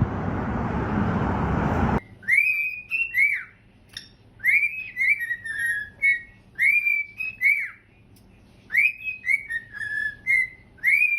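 Steady rushing noise that cuts off abruptly about two seconds in, followed by a whistled phrase of quick rising-and-falling notes, repeated three times with short pauses between.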